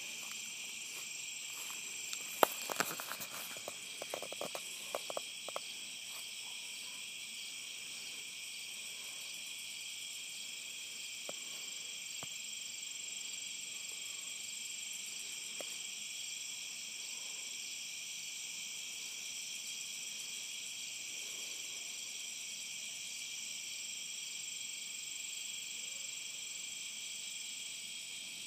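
Steady chorus of insects calling in several high pitches without a break. A cluster of sharp clicks and knocks comes about two to six seconds in.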